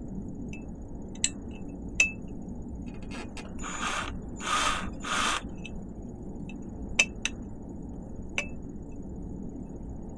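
Sharp metallic clicks and taps, several with a short ring, from a right-angle drill and bit being handled against a bike frame. About halfway through there are three brief rustling scrapes.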